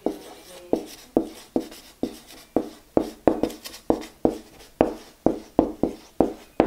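Black marker writing on a large white board: a string of short, sharp strokes and taps, about two or three a second and unevenly spaced.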